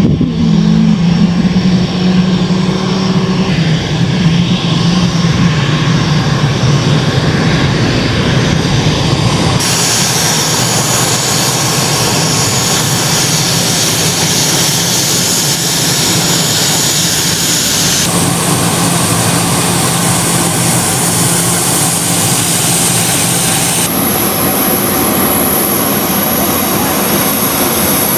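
Twin Rolls-Royce BR710 turbofans of an EC-37B Compass Call (Gulfstream G550-based jet) running on the ground, a steady jet rush with a high whine. The tone of the whine shifts abruptly about ten, eighteen and twenty-four seconds in.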